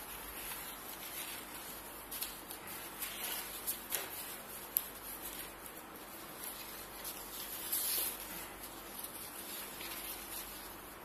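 Newspapers and paper sheets rustling and shuffling as they are handled, with scattered soft taps and a slightly louder rustle about eight seconds in.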